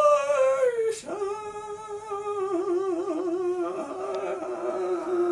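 A man singing in the style of an opera singer. He holds a loud high note that falls away about a second in, then a long lower note with a wavering vibrato.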